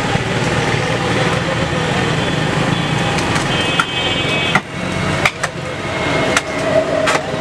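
Busy street background of traffic and distant voices, with a few sharp knocks of a butcher's knife against a wooden log chopping block in the second half.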